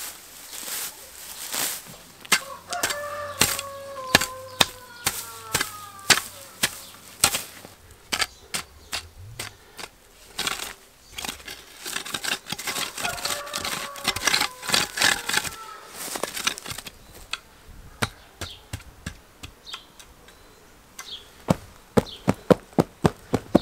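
A long-handled three-pronged garden hoe chopping and scraping into soil and grass roots, with grass being torn up, in repeated uneven strikes; near the end a quick run of loud strikes, about four a second. An animal's long drawn-out call sounds twice in the background.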